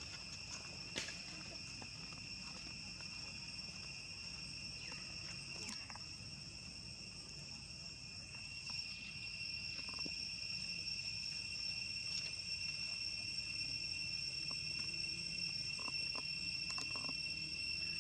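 A steady, high-pitched chorus of insects buzzing without a break, growing a little louder about halfway through, with a few faint clicks.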